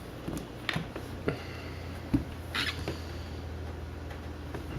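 Trading cards being handled on a table: several light taps and clicks, the sharpest about two seconds in, and a brief sliding rustle about half a second later, over a low steady hum.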